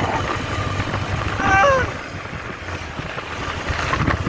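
Motorcycle in motion, its engine running under wind rushing over the microphone. About a second and a half in, a short call with falling pitch cuts through and is the loudest moment.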